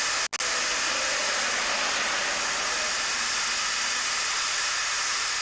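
Steam roller blowing off steam: a steady, loud hiss, broken for an instant by a dropout near the start.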